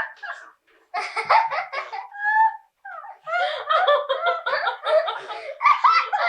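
People laughing, a small child's giggles mixed in with adults' laughter, in a few bursts separated by short pauses.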